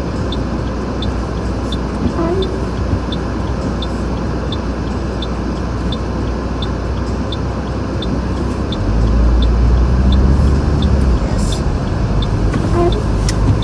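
Steady road and engine rumble inside a car driving on studded tyres over a snowy road, with a louder low rumble for about two seconds from around nine seconds in. A faint regular tick sounds a little under twice a second.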